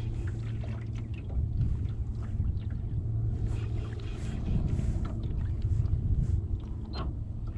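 A small boat out on choppy water: water lapping at the hull and wind on the microphone as an uneven low rumble, over a steady low hum.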